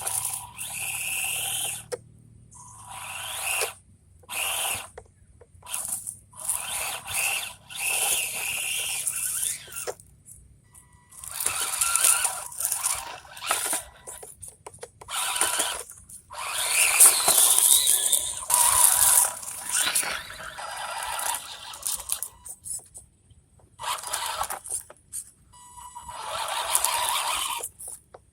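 MN86KS scale RC crawler's electric motor and gearbox whining in repeated throttle bursts of one to three seconds, stopping and starting as it is driven over a trail.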